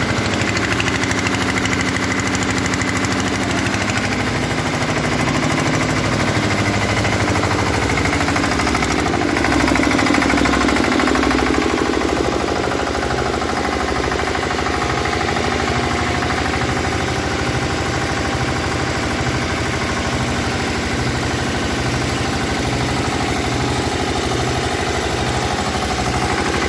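Rice husk suction machine running steadily: a continuous machine drone with a broad airy rush as its hose draws loose husk from a pile and sends it to the bagging chutes. A low regular throb comes through more clearly about halfway through.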